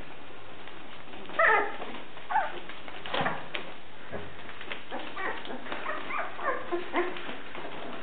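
Newborn Briard puppies squeaking and whimpering: a string of short, high calls, the loudest about a second and a half in.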